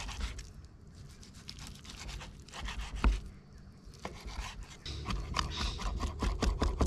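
Kitchen knife chopping raw barramundi fillet on a wooden chopping board: a run of knocks of the blade against the board, becoming quicker and louder about five seconds in as the fish is hacked into mince.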